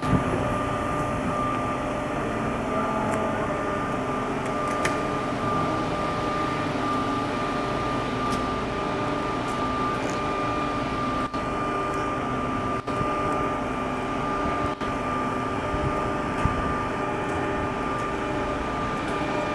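Ladder truck running steadily to power its aerial ladder as the ladder is raised: a constant mechanical hum with a steady high whine over it and a few faint clicks.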